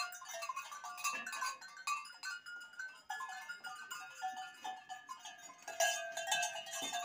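A herd of goats and kids bleating, many short calls overlapping one another, with a louder call near the end.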